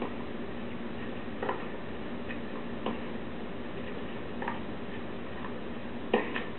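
Tennis ball hit back and forth in a slow baseline rally on clay: a sharp racquet pop about every second and a half, the loudest near the end, over a steady hiss and hum from an old TV broadcast recording.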